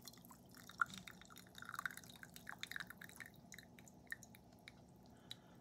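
Brewed tea dripping and trickling into a cup: a faint run of small irregular drips and splashes that thins out after about three seconds.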